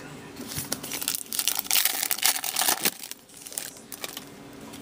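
Plastic-foil wrapper of a hockey card pack crinkling and tearing as it is ripped open. There is a run of crackles about half a second in, loudest in the middle, dying away after about three seconds.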